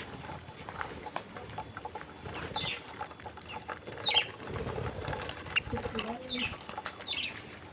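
A flock of budgerigars in an aviary, chirping in short high calls scattered throughout, with a low murmur partway through.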